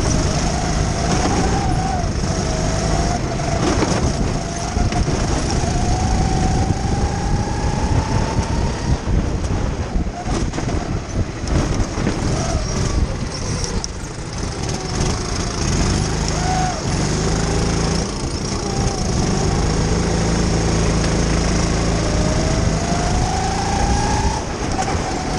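Racing kart engine heard from the kart's own onboard camera, running hard throughout. Its pitch climbs slowly for several seconds at a time, about twice, and sits lower in between.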